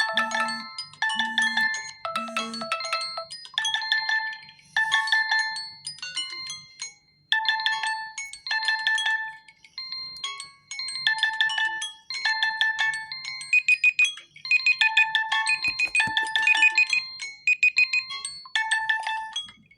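Mobile phone alarm tone: an electronic melody of short pitched notes, played in repeating phrases with brief pauses between them, stopping near the end.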